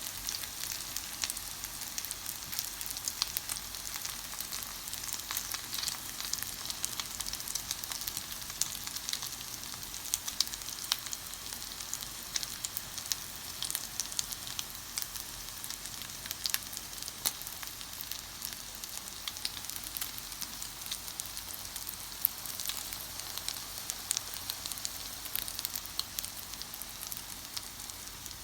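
Salmon, Korean chive and tofu jeon batter sizzling in oil in a frying pan: a steady hiss with frequent sharp pops and crackles.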